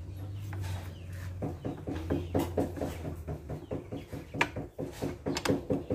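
A steel rod is worked inside a starter motor's drive housing, giving a few sharp metal clinks about four and five seconds in. Under it run a low steady hum that stops about halfway through and short repeated animal calls in the background.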